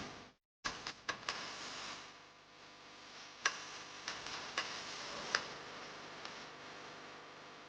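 A few sharp, scattered clicks and ticks, irregularly spaced, over a low steady hiss.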